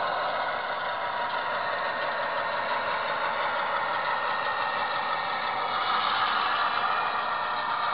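HO scale model train backing slowly along the track, with a steady engine-like running sound.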